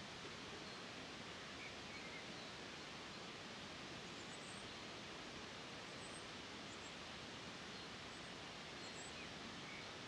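Steady running-water noise, an even hiss with no change in level, with a few faint, high, short bird chirps scattered through it.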